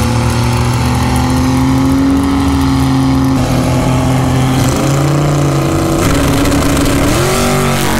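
Drag-racing truck's engine running loud and steady, its pitch shifting in steps a few times in the second half.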